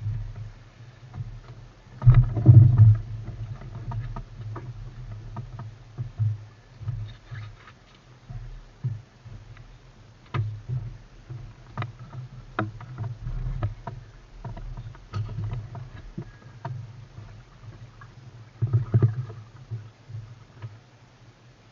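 A small boat being paddled on the water: splashes and irregular knocks of the paddle against the hull, over a low steady rumble, with louder splashing strokes about two seconds in and again near the end.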